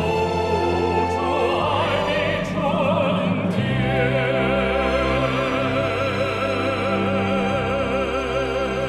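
Closing theme music: orchestral accompaniment under a held, wavering melody line that moves into long vibrato notes about halfway through.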